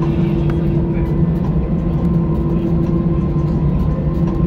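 Steady mechanical drone inside a moving vehicle: a low rumble with an even, constant hum running through it.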